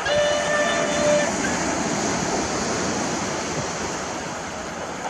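A steam locomotive's whistle holding one steady note, which cuts off about a second in. The train's running noise then fades into a steady rush of waves breaking on the shore.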